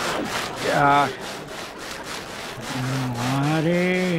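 A quick, regular swishing rub, like cloth chafing at each stride of a walk, with a man's drawn-out low call over it: a short one about a second in, and a longer one near the end that rises slightly.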